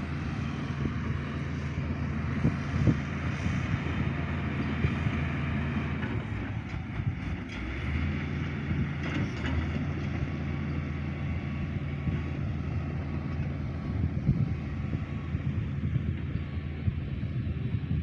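Crawler bulldozer's diesel engine running steadily, with a few short knocks over it.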